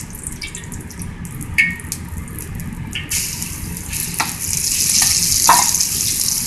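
Marinated diced chicken breast going into a wok of oil heated pretty hot: sizzling starts about three seconds in and grows louder as more pieces go in. A few sharp clinks of the metal spatula against the bowl and wok.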